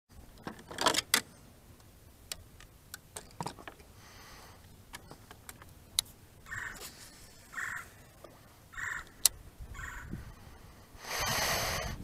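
A woodpecker calling four short calls about a second apart, among scattered clicks and knocks. The loudest is a cluster of knocks about a second in, and a burst of rustling comes near the end.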